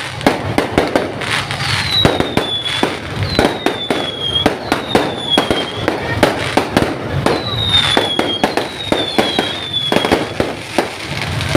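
A fireworks display with many bangs and pops in quick succession. Several short whistles fall slightly in pitch, one after another, among the bangs.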